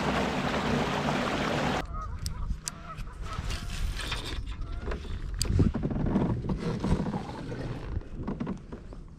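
Wind and water rush as the kayak moves, cut off sharply about two seconds in. Then come quieter clicks and rattles of a spinning rod and reel being handled, with faint short honking calls.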